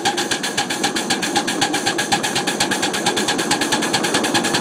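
Miniature 7½-inch-gauge live steam locomotive running under steam, its exhaust chuffing in rapid, even beats.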